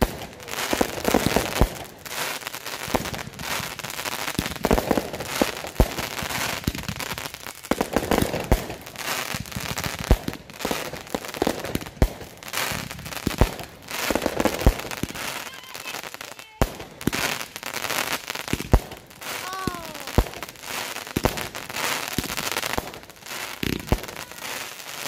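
Consumer aerial firework cakes from a Military Box kit going off in quick succession: repeated sharp booms of shells bursting, with the dense crackle of crackling stars between them. A short whistle sounds about 19 seconds in.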